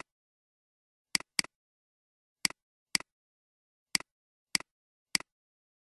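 Computer mouse button clicks: seven short, sharp clicks at uneven spacing, two of them in quick succession about a second in, with dead silence between.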